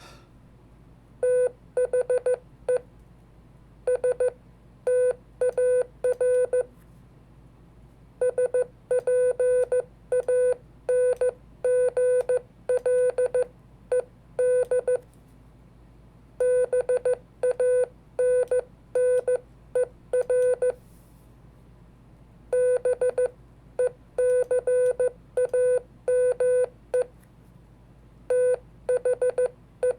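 Morse code sent by hand as a single mid-pitched CW sidetone, keyed in quick dots and dashes, in letter and word groups broken by short pauses.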